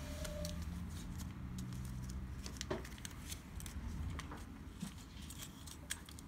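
Faint scattered clicks and rustling as a small packet of replacement embroidery machine needles is handled and opened, over a steady low hum.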